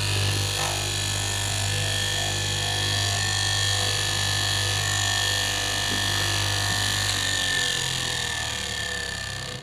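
Electric motor of a KM fabric-cutting machine running steadily with a strong hum. Near the end it is switched off and winds down, its pitch falling until it stops.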